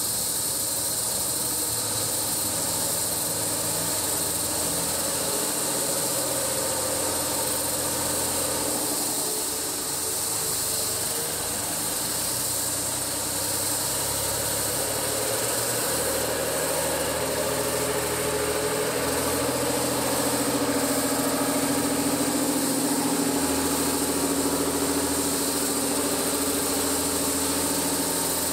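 An engine running steadily, its low hum stepping in pitch now and then, over a constant high hiss.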